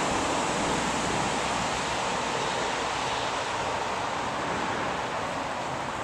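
Steady rush of a shallow, rocky stream running over riffles.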